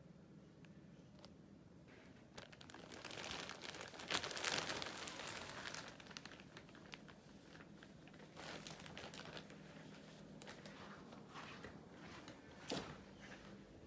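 A printed carrier bag crinkling and rustling as it is gripped by its handles and lifted with a cat inside, starting about two seconds in and loudest a couple of seconds later, then further crinkling as the bag is carried, with one short sharp crackle near the end.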